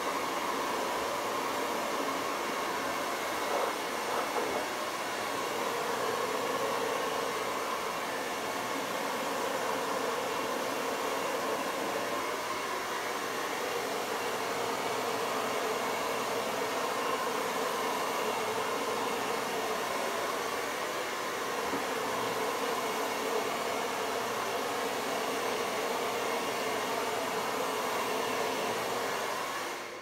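Hair dryer with a narrow nozzle attachment blowing air steadily, a constant whooshing hiss that cuts off suddenly at the very end.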